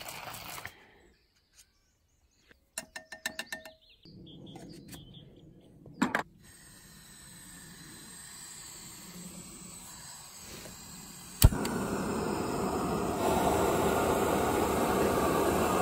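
Jetboil gas stove set up by hand with a few small clicks and knocks, then a sharp click of its igniter and the burner lighting with a steady gas hiss that gets louder a second or two later.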